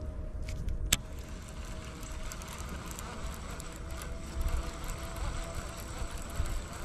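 Small electric trolling motor whining steadily, with wind rumbling on the microphone; a single sharp click about a second in.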